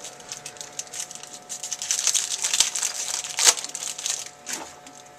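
A trading-card pack wrapper crinkling as it is handled and opened, a dense rustle of sharp crackles that builds, peaks after about three seconds, then fades.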